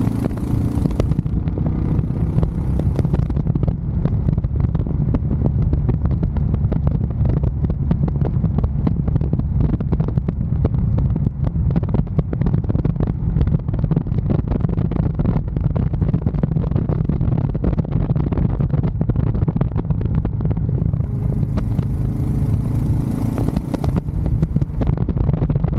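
Royal Enfield Scram 411's single-cylinder engine running steadily at an even speed while riding, with a high hiss rising over it briefly near the start and again near the end.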